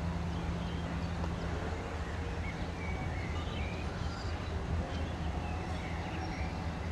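Outdoor yard ambience: a steady low machine hum, like an engine running at a distance, with scattered short bird chirps over it.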